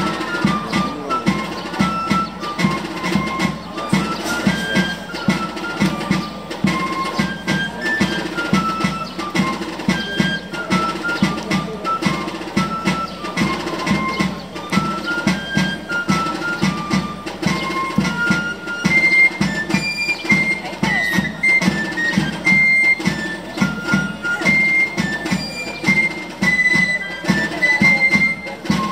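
Traditional Basque dance music: a single high pipe melody stepping up and down over a steady, regular drum beat.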